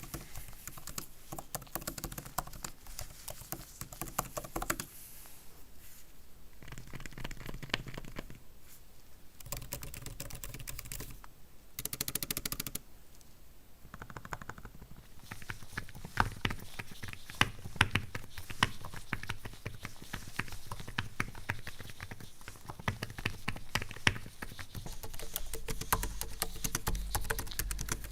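Typing on an Apple Magic Keyboard for iPad Pro: rapid key clicks, sparse and mixed with brief rustles of handling in the first half, then dense and continuous from about the middle on.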